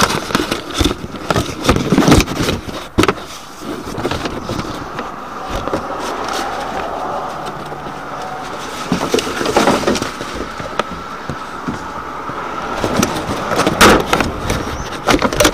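Handling knocks and paper rustling as the recorder is moved against a plastic wheelie bin and a paper bag, with a steady rush of noise through the middle stretch.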